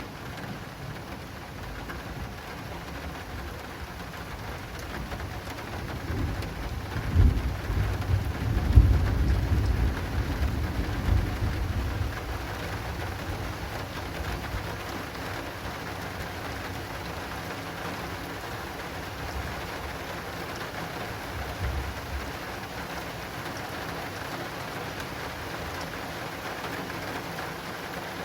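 Heavy rain falling on an acrylic awning, steady throughout. A roll of thunder rumbles low from about a quarter of the way in for several seconds, with a fainter rumble later on.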